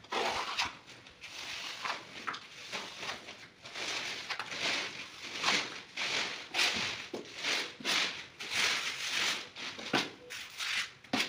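Trowel scraping across tile adhesive on a wall: a run of short scraping strokes, about one or two a second.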